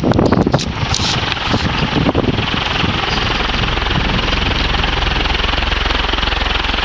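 SMC Laguna KA36 industrial ceiling fan running on high, about 380 RPM: a steady motor hum under the rush of air from the blades. Over the first three seconds this comes with rough, uneven noise and several knocks before it settles into an even run.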